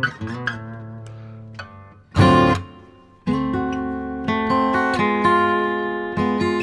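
Background music on acoustic guitar: picked notes fade, one loud strummed chord comes about two seconds in, then chords ring on after a brief lull.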